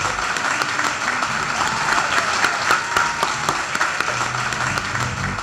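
Crowd applauding, a dense patter of many hands clapping. Music with a steady low line comes in about four seconds in.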